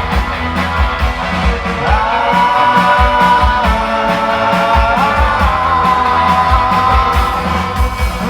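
Live pop-rock band playing, with a long held melody line that slides up into each new note over a steady kick-drum beat.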